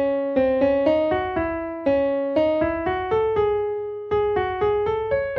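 Music: a piano-like keyboard melody, single notes and pairs of notes struck about two or three times a second, each ringing and fading before the next.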